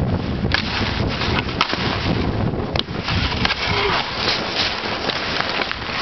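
Wind buffeting the microphone with a low rumble, over the hiss and scrape of a rider's skis or board cutting through snow at speed, with scattered sharp cracks and knocks.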